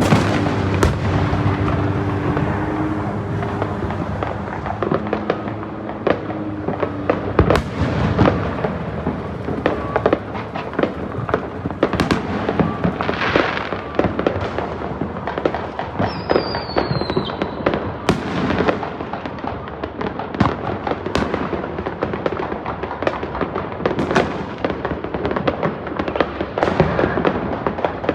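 Many fireworks and firecrackers going off together, a dense, continuous run of sharp bangs and crackles near and far. About sixteen seconds in, a single whistle falls in pitch.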